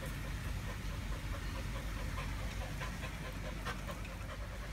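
Dog panting over a steady low background rumble.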